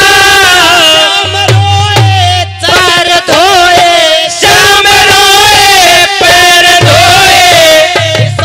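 Male voice singing a Haryanvi ragini through a loud PA, holding long wavering notes, with harmonium and drum accompaniment.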